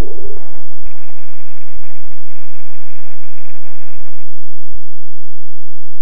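Loud, distorted radio static hissing for about four seconds and cutting off suddenly, leaving a steady electrical hum with a few sharp low knocks.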